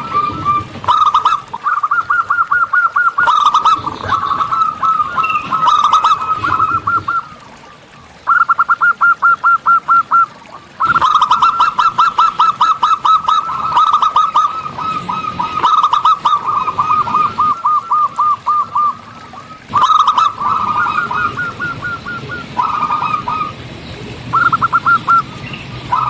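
Zebra doves (perkutut) cooing: long runs of quick, evenly repeated notes, one phrase after another, with a few short breaks.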